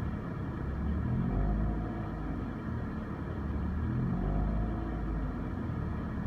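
BMW E46 330's M54 straight-six engine running, with a recurring sound that rises and falls in pitch about every three seconds, swelling in loudness each time. This is the strange engine noise the owner is trying to trace.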